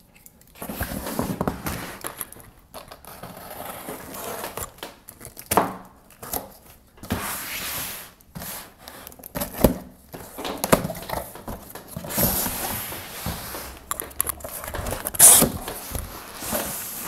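Cardboard shipping box being opened by hand: packing tape torn off, the flaps pulled open and the cardboard rustling and scraping, with several sharp knocks as the box is handled.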